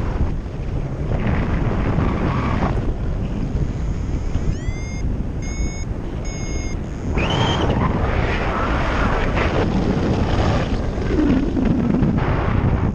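Wind rushing over the camera microphone in paraglider flight, a steady buffeting noise. About a third of the way in, a few short electronic beeps sound, the first sliding up in pitch, typical of a flight variometer signalling lift.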